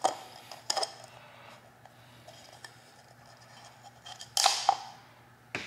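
Flathead screwdriver clicking and scraping against a plastic oil filter cap as the old rubber O-ring is pried out of its groove: a few scattered clicks, the loudest a short scrape about four and a half seconds in.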